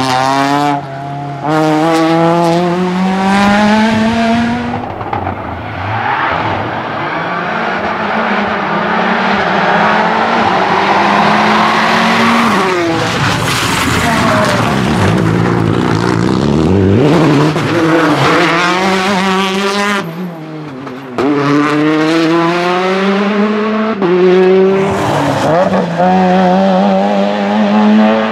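Rally car engines revving hard through the gears as the cars pass one after another: rising engine notes broken by short drops at each upshift. There are brief quieter gaps about a second in and again about two-thirds of the way through.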